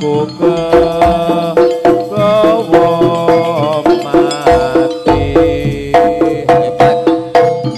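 Live Javanese jaranan ensemble music: drums and struck gamelan-style percussion keep a steady beat, with a bending, wavering melody line on top.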